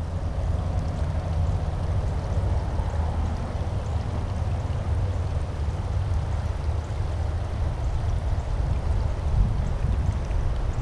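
Steady rushing noise with a low rumble, typical of wind on the microphone, over the soft, even whir of a baitcasting reel being cranked to retrieve a lure.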